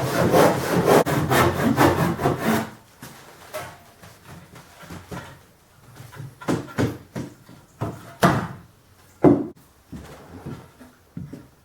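Hand saw cutting a pine board in quick, even back-and-forth strokes, stopping a little under 3 seconds in. After that come a few scattered wooden knocks and clatters, the loudest about 9 seconds in.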